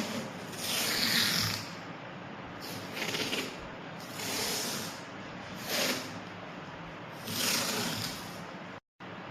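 Adhesive tape being pulled off a roll in short rasping rips, about five pulls roughly a second and a half apart, with a brief dead cut-out near the end.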